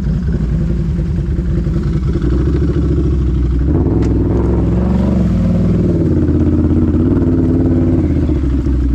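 Can-Am ATV engine running under throttle while wading through deep swamp water, revving up about halfway through, with water churning and splashing around the machine.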